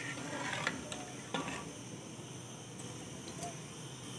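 A few faint clinks of a metal ladle against the pressure cooker pot in the first second and a half, then a low steady background hiss.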